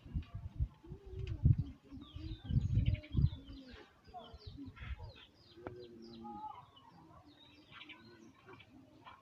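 Birds chirping throughout, with low cooing of a dove. Low thumps and rumble in the first three or four seconds.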